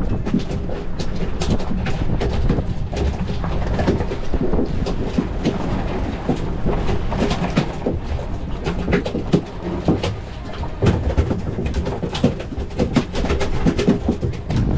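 Noise on a fishing boat in rough water: wind and sea with a low steady hum from the outboard motor, and many small knocks and clicks from the men working at the rail.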